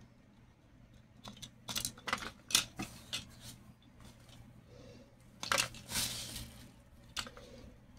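Hands handling the plastic housing of a rechargeable LED emergency bulb: a run of sharp plastic clicks and taps, with a denser burst of rustling and clicking about midway.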